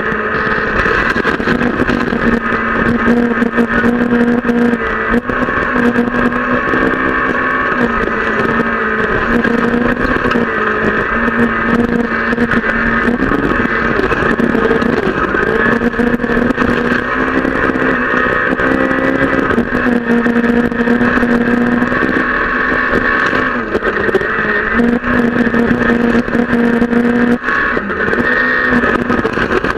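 Onboard sound of a Peugeot 208 R2 rally car's 1.6-litre four-cylinder engine at full effort on a gravel stage, its note rising and dropping again and again through gear changes, with a scatter of small knocks and rattles from the loose surface.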